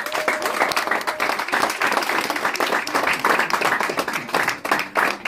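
Crowd of guests clapping, a dense, irregular applause, with one voice cheering briefly in the first second.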